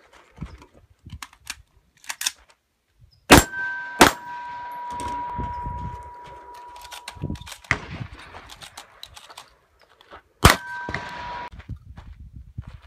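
Stoeger M3000 12-gauge semi-automatic shotgun fired: two shots in quick succession a few seconds in and another near the end, each followed by the ringing of a struck steel target. Between the shots come small clicks of shells being loaded into the magazine tube.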